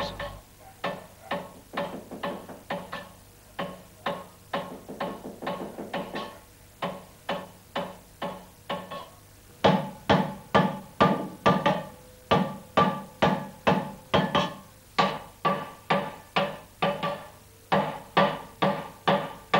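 Silversmith's hammer striking a silver bowl held over a steel stake: an even run of blows, about two or three a second, each with a short metallic ring. The blows grow louder about halfway through.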